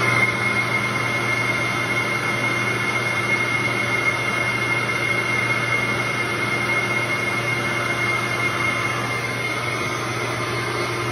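Shop vacuum running steadily at full suction, drawing air through a small engine's intake port on a homemade flow bench, with a steady high whine over a low hum.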